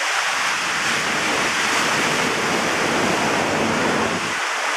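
Steady rush of water and spray pouring over a log flume boat, stopping shortly before the end.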